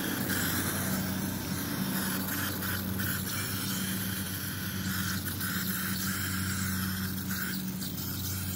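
Aerosol insect repellent sprayed heavily onto a yellowed plastic headlight lens, a continuous hiss, over a steady low hum.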